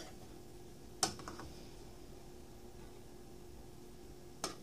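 A few light clicks and taps of a serving utensil against a glass baking dish and metal pan as cooked rice is scooped across, the sharpest about a second in and two more near the end, over a faint steady hum.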